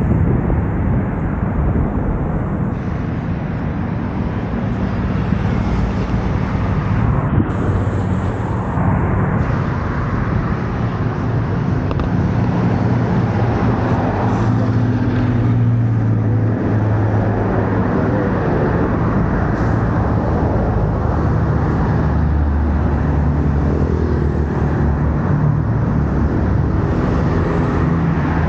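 Steady road traffic: cars and motorbikes passing in the adjacent bridge lanes, with tyre noise and low engine hums that come and go as vehicles go by.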